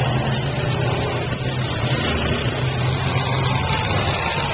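Engines of several demolition derby cars running and revving at once, a steady dense din with a low engine hum and faint rising and falling whines.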